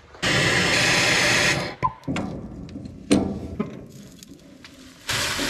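Angle grinder running in a burst of about a second and a half, cutting the seized nuts on a trailer's leaf-spring U-bolts. It is followed by a single metallic knock a few seconds in and another short burst near the end.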